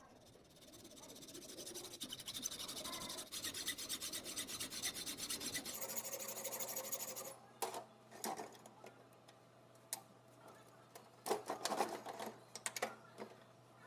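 Fast, continuous rasping scrape of scrap metal being worked by hand for about six seconds. This is followed by scattered sharp clicks and knocks as metal and tools are handled.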